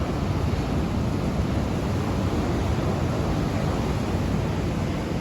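Hurricane Idalia's wind blowing steadily, with a rough low rumble of wind buffeting the microphone.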